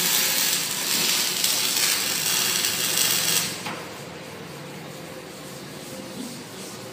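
CO2 MIG welding arc crackling steadily, then cutting off about three and a half seconds in. After that, only the steady hum of the Tân Thành TTC310RN welding machine remains.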